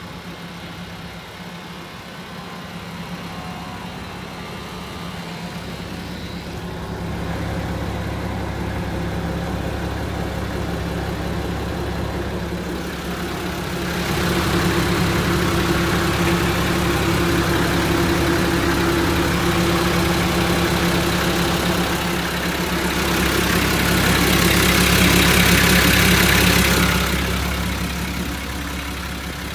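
Nissan TD42 4.2-litre straight-six diesel in a 1990 Civilian bus idling steadily. About halfway through it gets louder and a rushing hiss of exhaust at the tailpipe joins it, loudest near the end.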